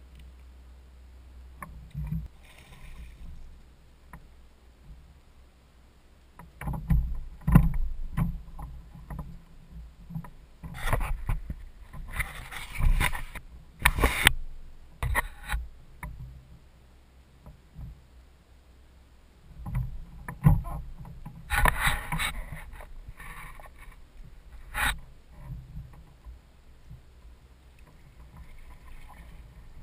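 Water splashing and knocking against a Hobie Adventure Island kayak's plastic hull, with gear clattering, in several loud clusters separated by quieter stretches.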